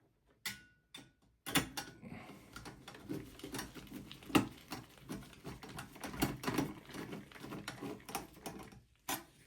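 Handling noise inside a small desktop computer case: a run of irregular clicks, taps and scraping of metal and plastic parts as the hard drive cage is fastened back in, with one sharper knock about four seconds in.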